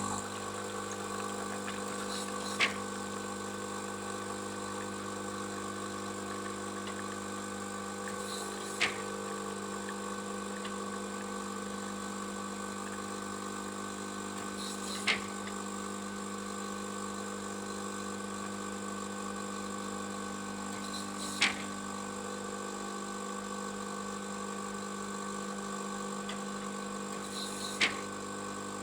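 Coffee machine running with a steady hum, and a sharp click about every six seconds.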